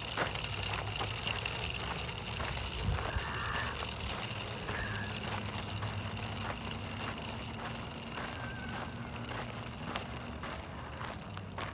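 Footsteps on a dirt and gravel trail, ticking about twice a second, over a steady low rumble of wind on the microphone.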